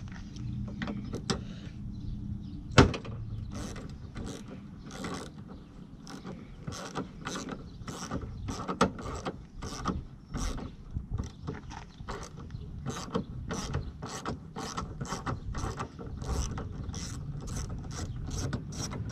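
Hand ratchet on an extension clicking stroke after stroke, about two clicks a second, as it turns a headlight mounting bolt. One much louder, sharper click comes about three seconds in.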